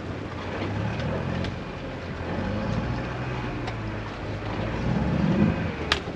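An engine idling with a steady low hum that swells a little about five seconds in.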